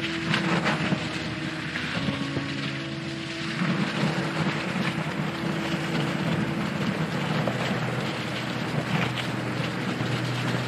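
Wind buffeting an action-camera microphone and fat-bike tyres rolling over a frosty gravel trail, a steady rushing noise. Soft held tones of background music run underneath, changing note every few seconds.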